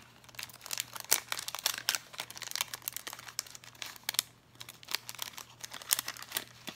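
Clear plastic sticker sleeve crinkling and crackling in the hands as stickers are slid out of it, in irregular bursts of crackle.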